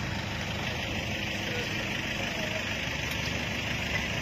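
Vehicle engine idling with a steady low hum, under an even hiss.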